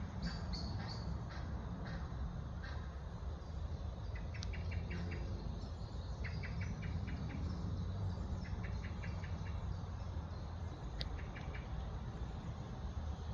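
Outdoor ambience: short chirping trills of a few rapid pulses repeat about every two seconds over a steady low rumble.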